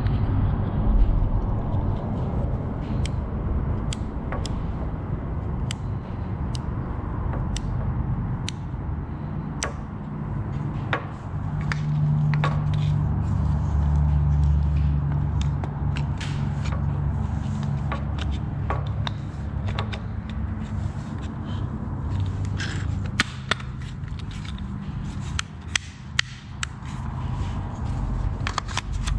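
Plastic clicks, taps and scrapes of an impact wrench's housing halves and internal parts being handled and fitted together, with a steady low rumble underneath.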